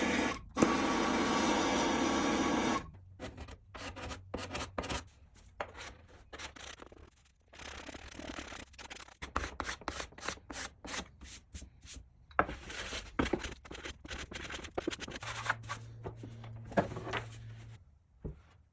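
A loud steady rushing noise that cuts off suddenly after about three seconds, followed by many short, irregular strokes of rubbing and scraping on wood, typical of hand-filing or sanding work.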